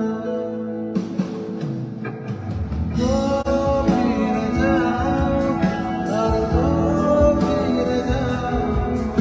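A band playing a Bengali song with a male singer: sustained sung notes over guitar, with drums and bass coming in about three seconds in.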